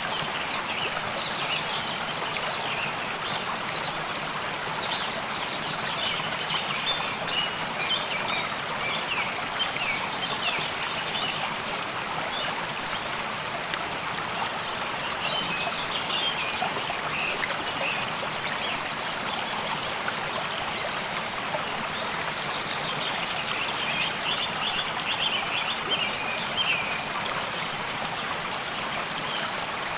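A stream babbling steadily, with songbirds singing in runs of short, high chirps several times over it.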